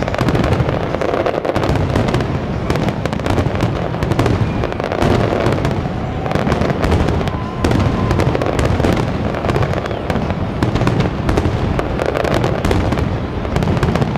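Aerial firework shells bursting in a dense, continuous barrage, many sharp reports and booms overlapping with no pause.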